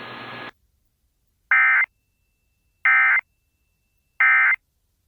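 Weather-radio static hiss cuts off half a second in, followed by three short bursts of Emergency Alert System SAME data tones, about 1.3 seconds apart: the end-of-message signal that closes the alert.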